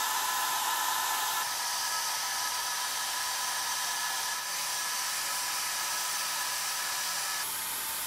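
Salonia Smooth Shine hair dryer running on its hot, strong setting: a steady rush of air with a high motor whine. Its tone shifts slightly at a few points.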